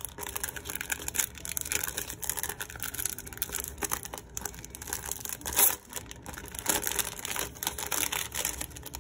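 Clear cellophane sleeve of a sticker kit crinkling and rustling as hands handle it and peel open its sealed flap, in a continuous run of irregular crackles.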